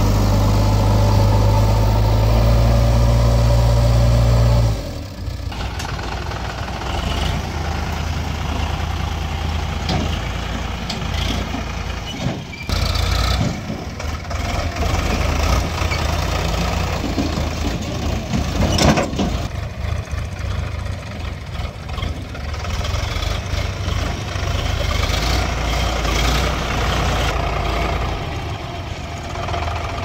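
Diesel engine of a JCB 3DX backhoe loader running loud and steady close up for about the first five seconds. Then the level drops suddenly, and the engines of the backhoe and a Sonalika tractor run on, with a few sharp knocks.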